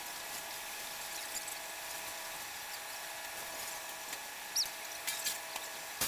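Concrete mixer truck running, a steady whine made of several held tones. A short high chirp about two-thirds of the way through, followed by a few light clicks.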